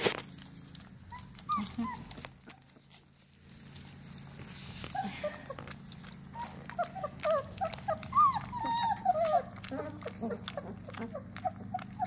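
A litter of young puppies squeaking and whimpering: many short, high calls that bend up and down, a few early on and crowding together in the second half, over small clicks of the puppies eating their milk-softened kibble.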